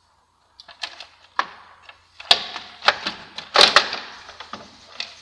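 Plastic cam-belt cover of a Citroën 1.6 HDi engine being worked loose and pulled out past the crankshaft pulley: an irregular run of sharp plastic knocks, clatters and scrapes, loudest around the middle.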